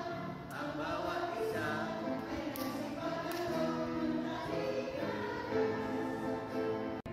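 A group of women singing a church song together as a choir, several voices sustaining notes at once.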